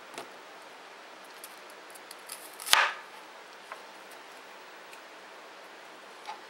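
Kitchen knife cutting through a peeled yellow onion and knocking on the cutting board: one loud crunching cut a little under three seconds in, with a few faint clicks around it.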